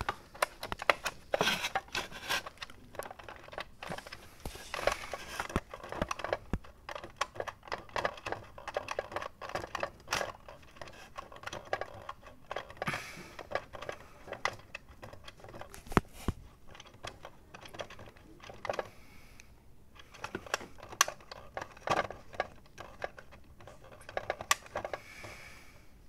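Handling noise from a small plastic alarm clock: irregular clicks, taps and crinkling, without any steady rhythm. The clock's melody or bell alarm is not sounding.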